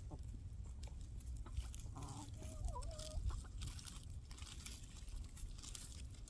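Hens clucking softly, a short run of low clucks about two to three seconds in, over faint crunching footsteps.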